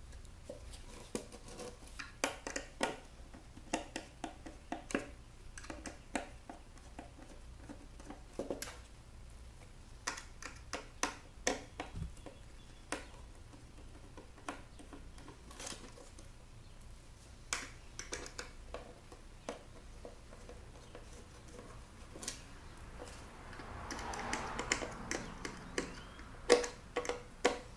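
Irregular small clicks and taps of a hand-held Torx bit driver working screws out of a plastic computer speaker's front panel, with a brief scraping rustle near the end.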